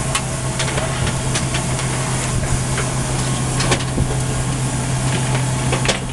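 KC-135 cockpit noise with the jet engines idling during taxi: a steady drone and low hum, with a few faint clicks.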